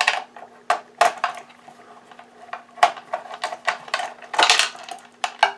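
Irregular sharp clicks and clinks of parts and tools handled inside an opened Oreck XL vacuum cleaner as its small circuit board is taken out.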